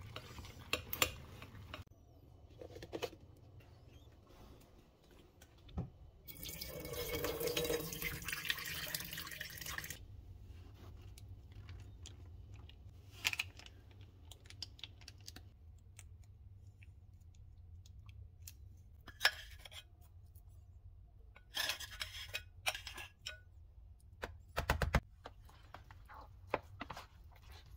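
A series of kitchen sounds. Egg sizzles and is stirred with chopsticks in a small steel saucepan at the start. About six seconds in come roughly four seconds of running water. Scattered clicks and knocks follow, and near the end chopsticks stir noodles in a paper cup.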